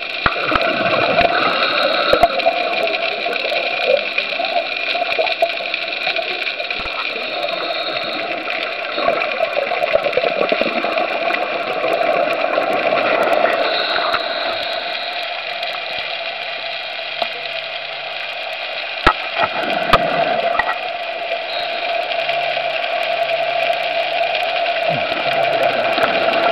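Underwater noise picked up by a camera in its housing: a steady watery hiss and rush, with a couple of sharp clicks about two-thirds of the way through.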